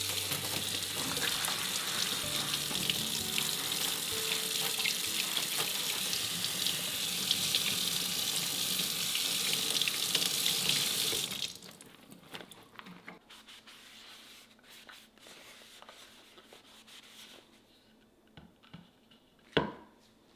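Kitchen faucet water pouring onto a wooden end-grain cutting board held in a stainless steel sink, splashing steadily; the water cuts off abruptly about eleven seconds in. Faint handling clicks follow, and there is one sharp knock near the end.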